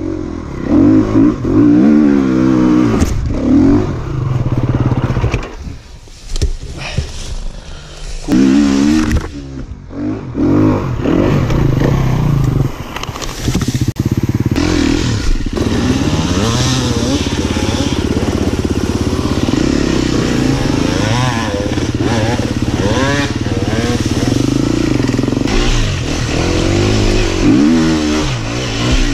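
Enduro dirt bike engine revving hard and unevenly on steep hill climbs, its pitch rising and falling with bursts of throttle, dropping back briefly several times about six to ten seconds in.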